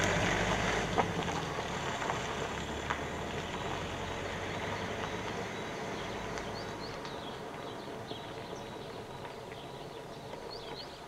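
Outdoor ambient noise with a low rumble that fades over the first few seconds, a few light clicks, and some faint high chirps later on.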